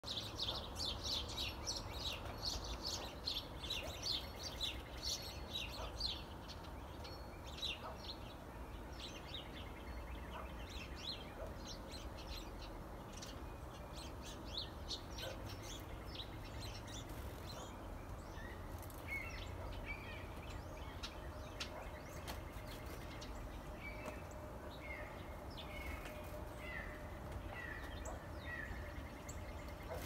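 Small songbirds chirping and calling: a dense run of rapid high chirps for the first six seconds, then sparser calls and, in the last third, a string of short falling notes repeated every second or so. A steady low rumble runs underneath.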